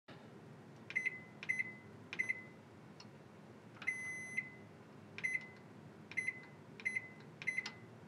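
Panasonic NN-SD975S microwave's control-panel beeper giving a short, high beep at each keypad button press, each beep led by a faint click of the key. About eight beeps come at uneven spacing, with one longer beep about four seconds in.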